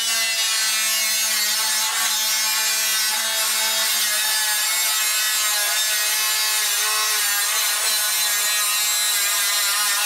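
Jupiter angle grinder with an abrasive cut-off disc cutting through thin sheet steel: a steady, high-pitched grinding whine with a harsh hiss over it. This disc throws many sparks and cuts more slowly than a toothed multi-tip saw blade, but leaves a clean cut edge.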